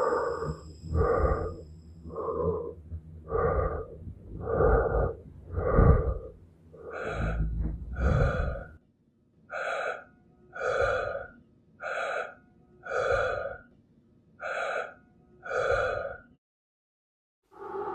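Michael Myers' heavy, raspy breathing sound effect from the Halloween films: a steady run of loud breaths, about one a second. A low rumble lies under the first half of the run. The breathing breaks off briefly near the end, then starts again.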